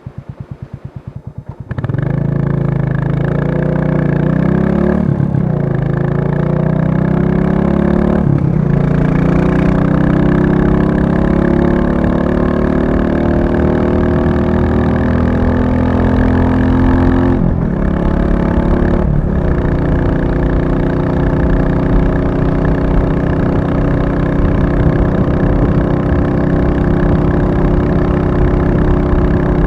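Royal Enfield Classic 350 single-cylinder engine thumping evenly at idle. About two seconds in it gets suddenly louder as the bike pulls away, its pitch rising through the gears with short breaks at the shifts. It then settles into a steady cruise.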